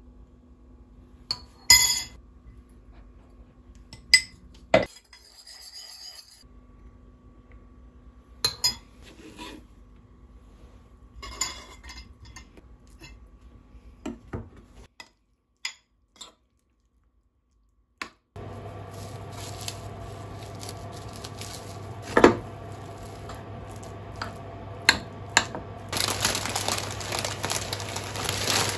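A metal spoon clinking and scraping against a ceramic bowl, in scattered sharp knocks, as sauce is measured and tuna and avocado are mixed. After a short silence a steady low hum sets in, and near the end plastic packets crinkle.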